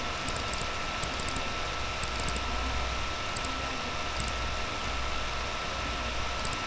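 Computer mouse clicking in short runs of two to four quick clicks, several times, over a steady hiss with a faint steady whine.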